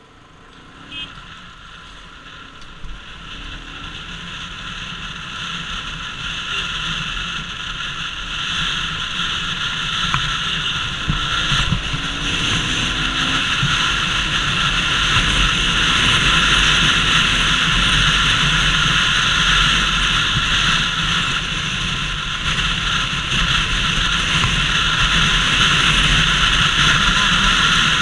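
Wind rushing over the microphone of a helmet-mounted camera on a Bajaj Pulsar RS200 motorcycle, with the bike's engine running beneath. The rush swells steadily over the first fifteen seconds or so as the motorcycle gathers speed, then stays loud and steady at cruising speed.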